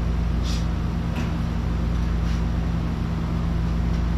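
Steady low mechanical hum, with a few faint short hisses in the first few seconds.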